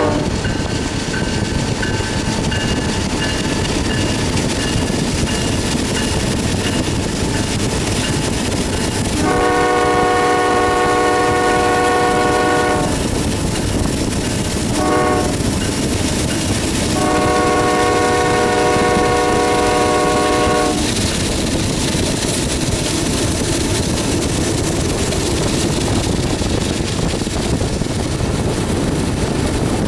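Norfolk Southern freight locomotive's air horn sounding a long blast, a brief short one and another long blast, the close of the long-long-short-long grade-crossing signal. The train's steady rumble runs underneath throughout.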